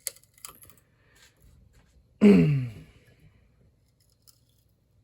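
Light clicks and taps of hand tools working a wooden pinewood derby block. About two seconds in, a short, louder sound falls in pitch over about half a second.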